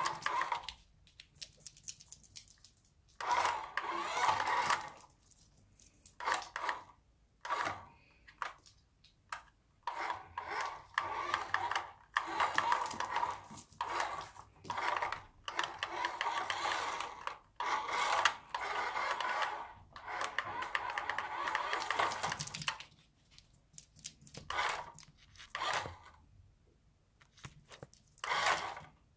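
Small remote-control toy car driving in repeated short spurts of one to two seconds, its electric motor whirring as the wheels roll over a wooden floor.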